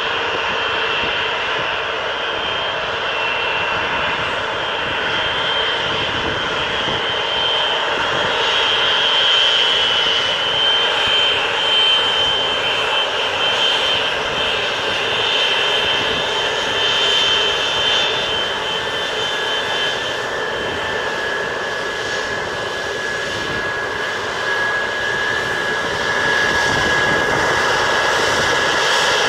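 Jet engines of a Boeing 747-400 running at taxi power as the airliner rolls past: a steady jet roar with high-pitched whines over it.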